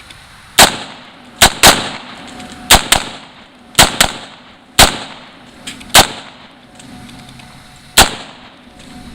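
AR-15 rifle firing about ten semi-automatic shots at an uneven pace, some in quick pairs a quarter-second apart, each trailing off in a short echo.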